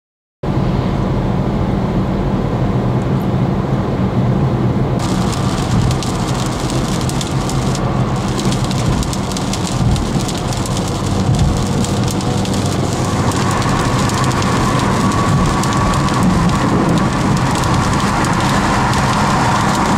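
Heavy rain hitting a car's roof and windscreen over a steady hum of engine and tyres, heard from inside the moving car. The rain's hiss grows sharper about five seconds in.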